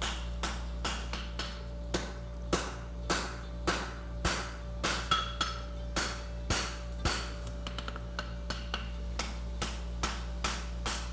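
Hand hammer striking a red-hot 1¼ by ½ inch steel bar on an anvil at about two blows a second, flattening the stock for a farrier's side bone horseshoe. A run of lighter, quicker taps comes about eight seconds in, then the steady blows resume.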